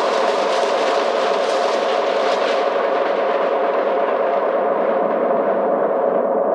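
Hardware synthesizer playing a dense, steady noise drone as the closing sound of an electronic live set. A low-pass filter sweeps slowly shut from about halfway in, so the bright top end fades away and a dull mid-range hum is left.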